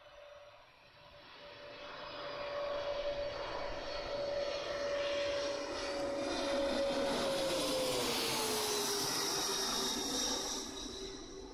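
Twin-engine turbofan jet on final approach passing low overhead: the engine whine and rush build steadily, and the pitch drops as it goes over, about eight seconds in, before easing off near the end.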